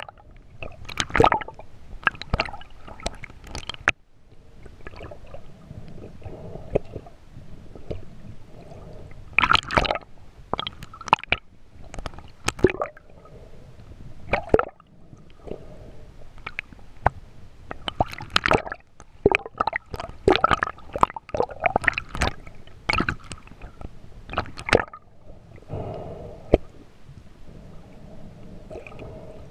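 Water sloshing and gurgling around an underwater camera as a spearfishing freediver swims, with irregular sharp crackles and knocks coming in clusters and calmer stretches between them.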